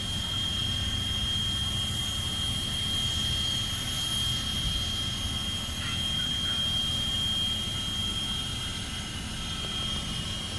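Steam locomotive No. 89 standing while its tender is filled with water: a steady low rumble with a constant high-pitched whine.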